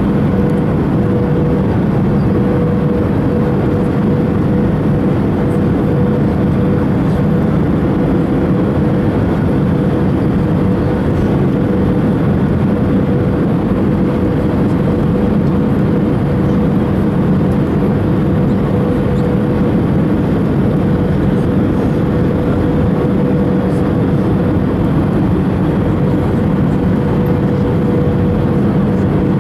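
Steady cabin noise inside an Airbus A319 on its descent toward landing: the even roar of the engines and of air rushing past the fuselage and wing, with a steady mid-pitched hum running through it.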